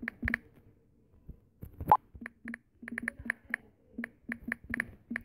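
Key-tap clicks from a phone's on-screen keyboard while a WhatsApp message is typed, coming in a quick run. About two seconds in there is one short, louder pop with a slight rising tone: WhatsApp's sound for a message sent.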